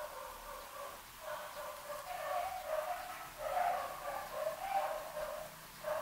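An animal calling over and over in short, pitched bursts, about one to two calls a second.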